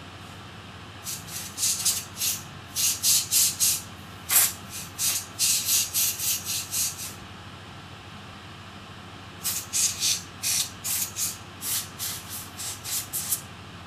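Compressed air blowing dust off laptop heat sinks. It comes as two runs of rapid short hissing blasts with a pause of a couple of seconds between them.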